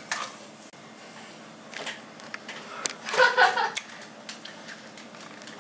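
Quiet room with a brief, untranscribed voice sound about three seconds in, and a few light clicks.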